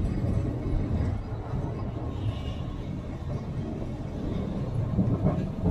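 Historic streetcar running along the track, heard from inside the car: a steady low rumble.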